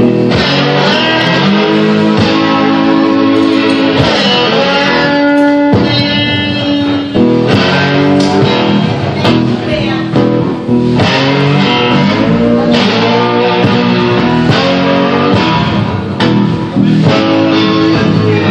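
Live swamp-rock instrumental on an amplified electric guitar, the homemade instrument called 'the gator', played without a break.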